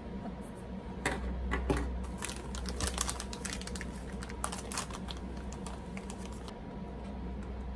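Stiff clear plastic snack wrapper crinkling and crackling as it is handled, a quick irregular run of sharp clicks that stops about six and a half seconds in. A steady low hum runs underneath.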